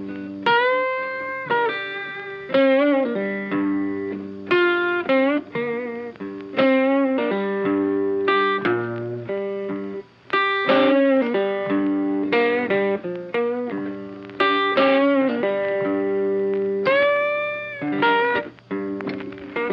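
Instrumental background music: a melody of short pitched notes, some sliding up in pitch, over a steady accompaniment, with a brief break about halfway through.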